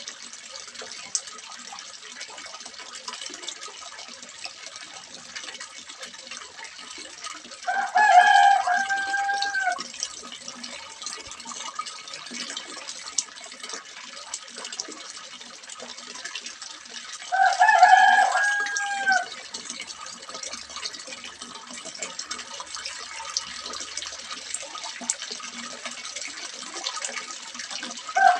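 Water splashing steadily into a small fish pond. A rooster crows twice, about a third and two-thirds of the way through, each crow a loud drawn-out call that falls at the end.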